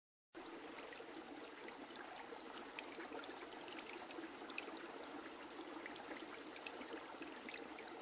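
Faint trickling water, a steady hiss flecked with tiny splashes, cutting in abruptly after a moment of silence.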